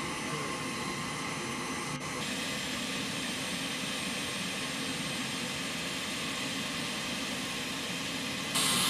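Aircraft engines running steadily: a constant rush with steady high whining tones, jumping louder and hissier near the end.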